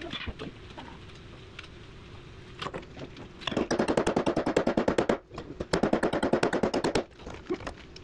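Sledgehammer striking a steel driver bar, metal on metal, driving a chilled bushing into a skid steer's lower boom pin bore. Two rapid runs of evenly spaced blows, about a dozen a second, the first starting about three and a half seconds in, with a short break between them.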